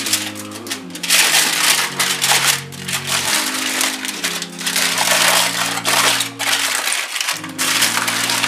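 Aluminium foil crinkling and crackling as it is folded and twisted around a rolled wrap, in dense bouts with brief pauses, over soft background music with held notes.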